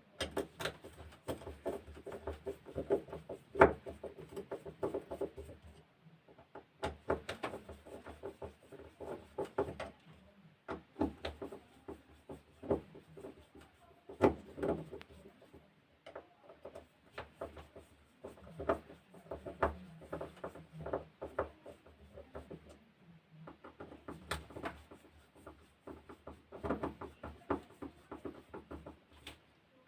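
Hands working a battery sprayer pump open: bursts of clicks, taps and scraping of parts being handled, a few seconds at a time with short pauses, with one sharper knock a few seconds in.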